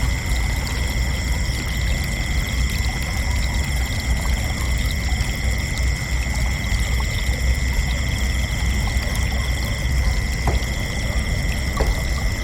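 Crickets chirping in a continuous, steady high trill, over a steady low rumble.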